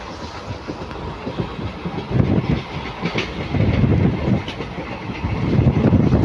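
Indian Railways passenger coach running at speed: a steady rumble of wheels on the track with irregular clattering thuds, heard at an open window. It grows louder about two seconds in, with a few faint sharp clicks.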